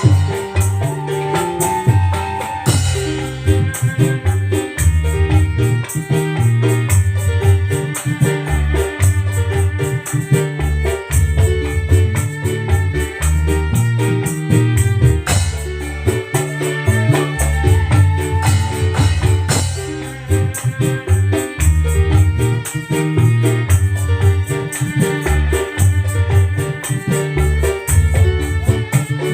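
Instrumental music played loud through a sound system during a sound check: heavy bass notes, keyboard, and tambourine-like shaker percussion in a steady rhythm.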